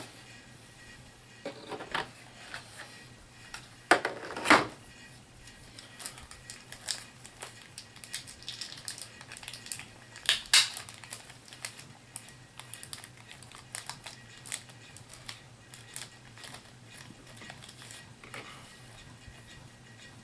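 Plastic miniature figures and their booster packaging handled on a tabletop: scattered small clicks, knocks and crinkles, the loudest a few knocks about four seconds in and one about ten seconds in.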